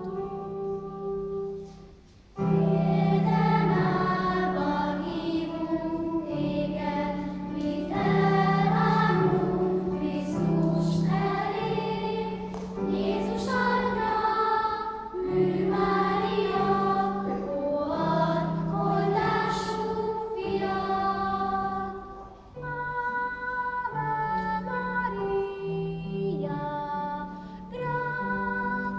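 Children's choir singing, accompanied by a Roland electric keyboard playing held chords. The music breaks off briefly about two seconds in and dips again about three-quarters of the way through, between phrases.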